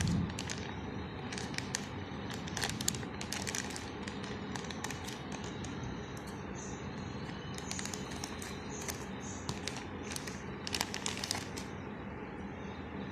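Scattered crinkles and light clicks of something being handled, in small clusters, over steady background noise.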